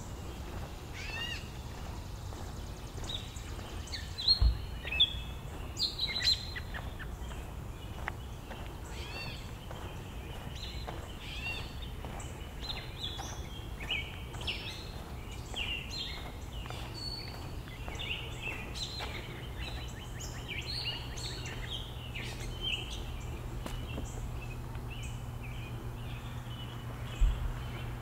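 Several birds chirping and calling over one another in short repeated notes, over a low steady rumble. A few loud dull thumps come about four to six seconds in and again near the end, and a low steady hum sets in about halfway through.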